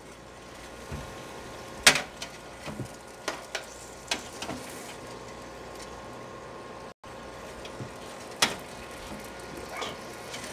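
Metal tongs clinking and scraping against the hot pan of an air fryer oven as seared steaks are turned over: a few sharp metal clinks, the loudest about two seconds in and near the end, over a steady hum.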